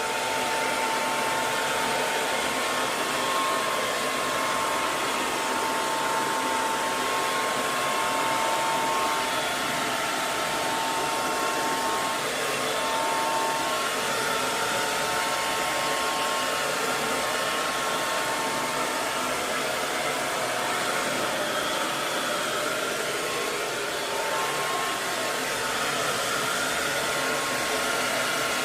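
Handheld hair dryer running continuously: a steady blowing hiss of air with a faint whine from the motor, played as white noise for soothing a baby to sleep.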